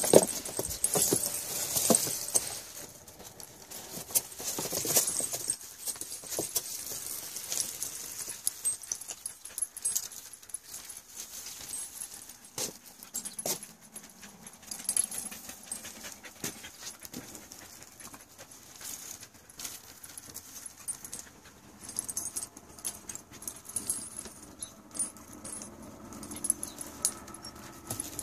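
A husky moving about on its leash, panting, with occasional whines and the jingling of its metal leash clip and collar. The dog is restless and wants to go inside.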